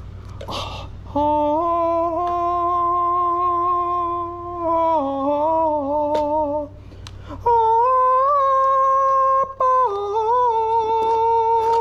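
A man hooting and hollering in two long, drawn-out sung notes, each held several seconds with a step in pitch partway through. A few light clicks of handled parts sound under them.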